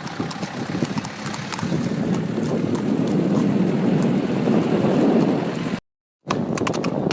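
Steady wind noise buffeting the microphone, cutting out completely for about half a second near the end.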